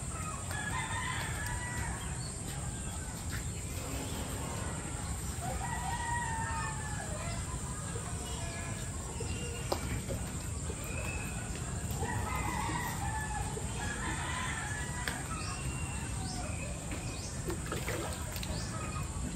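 Roosters crowing several times, each crow a long arching call, over a steady low background, with a single short knock about halfway through.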